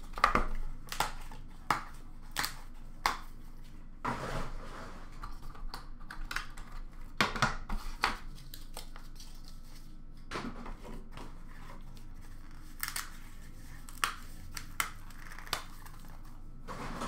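Hands opening and handling a cardboard trading-card box on a glass counter: scattered sharp taps and clicks, with stretches of rustling packaging about four and seven seconds in.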